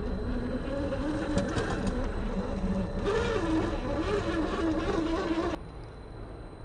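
A 550 brushed electric motor and drivetrain of a 1/8-scale RC rock crawler whining under load as it climbs rock, the pitch wavering up and down with throttle. About five and a half seconds in the whine cuts off abruptly, leaving a quieter background.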